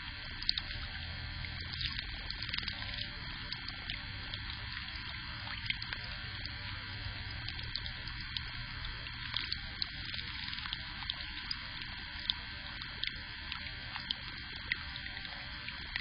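Steady hiss and low electrical hum from an outdoor security camera's microphone, with faint scattered ticks.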